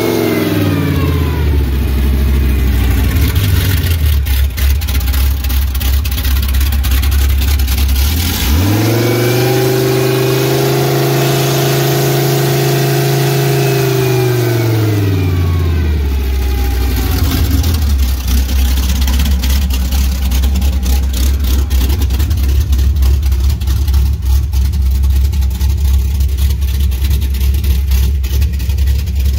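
Ilmor MV-10 Viper V10 marine engine running on a dyno. It winds down to idle in the first couple of seconds. About eight seconds in it revs up and holds a higher, steady speed for about six seconds, then drops back to a steady idle.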